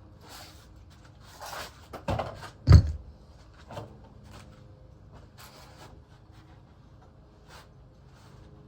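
A few knocks and clunks, the loudest a thud a little under three seconds in, over a faint steady hum.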